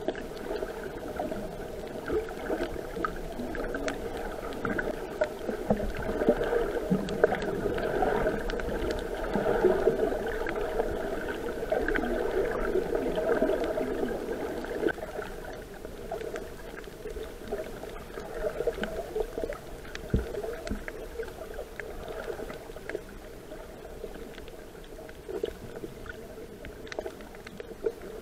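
Muffled underwater noise picked up by a submerged camera: a continuous rushing of water with scattered faint clicks and crackles, growing louder between about six and fifteen seconds in.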